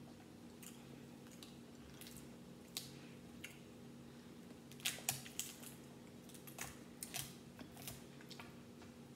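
Crab leg shells cracking and snapping as they are broken apart by hand: scattered sharp cracks, with a quick cluster of louder ones about five seconds in. A faint steady hum runs underneath.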